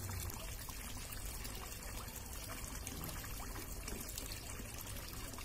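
Steady trickling water, an even hiss with no breaks.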